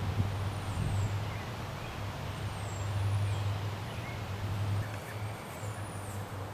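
Steady low rumble, like an idling vehicle or traffic, with faint high bird chirps now and then.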